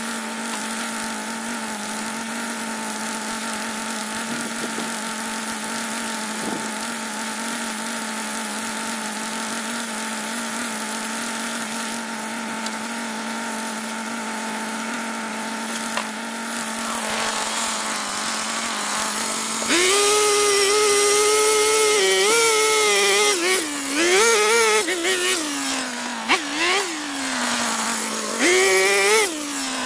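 Hyundai HYEA5200X two-stroke petrol earth auger idling steadily, then revved up about two-thirds of the way in to bore into clay, its engine pitch rising and falling several times before dropping back toward idle near the end.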